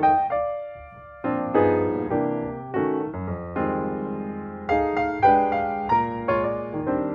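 Piano music: chords and melody notes struck one after another, each ringing and fading, with a short lull about a second in.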